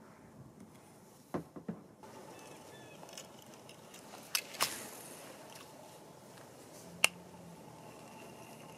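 Kayak paddling on calm water: a faint steady wash of water with a few sharp clicks and splashes from the paddle and hull. The loudest are a close pair about halfway through and a single sharp click near the end.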